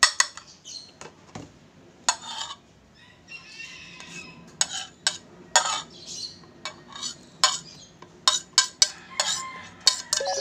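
A kitchen knife tapping and scraping on a plate while chopping red chilies and pushing the pieces off the plate: irregular sharp clicks, coming faster in the second half, with a brief scrape about three seconds in.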